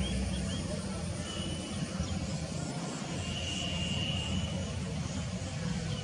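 Steady low background rumble, with three faint short high chirps at the start and a faint thin high whistle held for about a second and a half around the middle.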